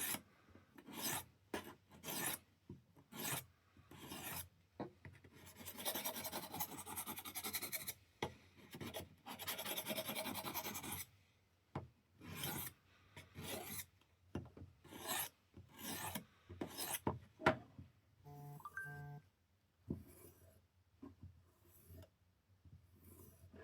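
Steel knife blade drawn in repeated strokes across the abrasive of a Work Sharp field sharpener: a gritty rasping scrape, mostly in separate strokes with a stretch of quick continuous scraping in the middle, putting a new edge on a very dull blade. A brief pitched tone sounds about two-thirds of the way through.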